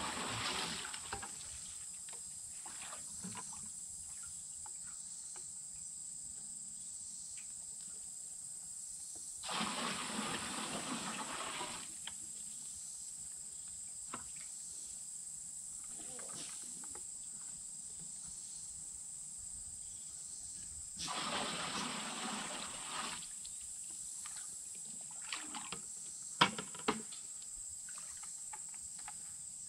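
Water poured from buckets splashing into a galvanized stock tank, three pours of two to three seconds each, about ten seconds apart. A steady high-pitched drone runs underneath, and a few sharp knocks come near the end, the loudest of them a little past three-quarters of the way through.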